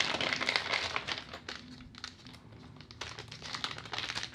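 Small clear plastic parts bag crinkling as it is handled and opened, its contents taken to be small screws. The crinkling is dense for about the first second and a half, eases off, and starts again about three seconds in.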